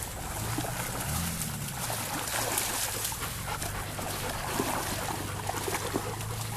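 Labrador retrievers moving about and making small dog noises, over a steady low hum that rises briefly in pitch about a second in.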